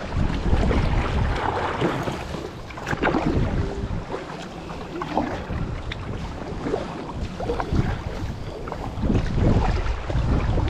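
Wind buffeting the microphone in uneven gusts, stronger near the start and again near the end, over water splashing and sloshing around an inflatable kayak being paddled.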